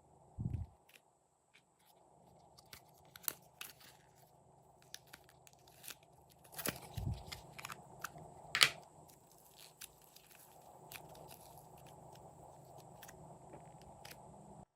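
Glossy slime being squeezed and worked by hand, giving scattered wet crackling clicks and pops, with a couple of low soft thuds and one sharper pop past the middle.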